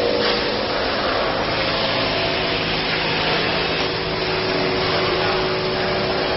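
Automatic thermal transfer ribbon slitting machine running: a steady whirring hiss with a faint motor hum underneath.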